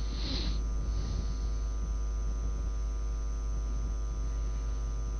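Steady electrical mains hum and buzz in the recording, with a short soft hiss near the start.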